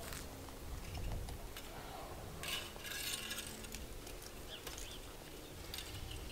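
Faint handling noise of a small birdhouse being taken down from a tree and carried off, with a brief rustle about two and a half seconds in and a few small clicks, over low wind rumble on the microphone.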